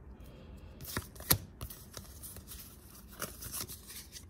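Trading cards being handled and flipped through by hand: card stock sliding against card stock, with a few sharp snaps, the loudest two about a second in.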